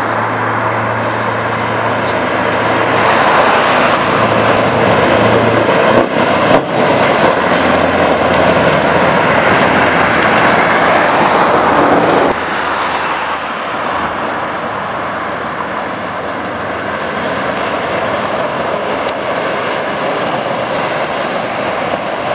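Scania R500's V8 diesel engine running loud as the truck drives past, with two brief dips about six seconds in. About twelve seconds in the sound drops abruptly to a quieter, steady engine note that carries on.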